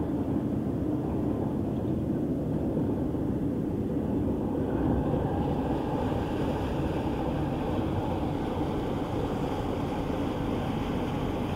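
Inland motor cargo ship's diesel engine running steadily as the vessel passes at close range, a low, even sound that takes on more hiss about halfway through.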